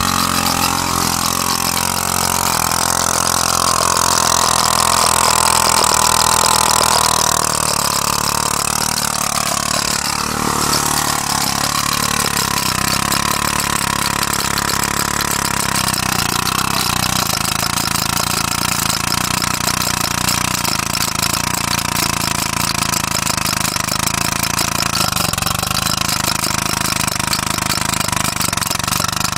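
Homemade steam engine running steadily on compressed air, with a hiss over its rhythm. It makes a horrible metal-on-metal sound: this is not the engine braking but a small valve screw hitting the sides as it moves up and down, and it needs a pad to quiet it.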